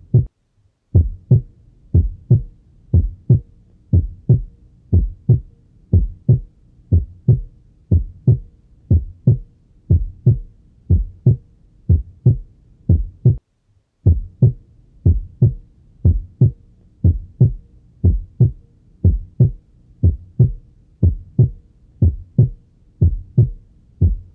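Normal heart sounds: a steady lub-dub rhythm of first and second heart sounds, each beat a pair of short low thumps. The second sound, the 'dub', marks the closure of the aortic and pulmonary valves at the start of ventricular diastole. The rhythm breaks off briefly twice, just under a second in and about halfway through.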